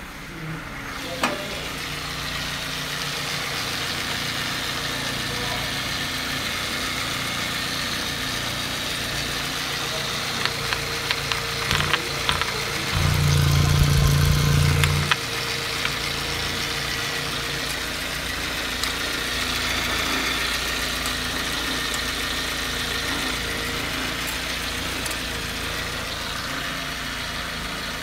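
Nissan GA16 1.6-litre twin-cam 16-valve four-cylinder engine idling steadily. A few light clicks come just before a louder low hum of about two seconds midway.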